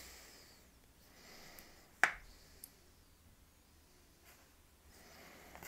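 Quiet room tone broken by one sharp click about two seconds in, followed by a much fainter tick.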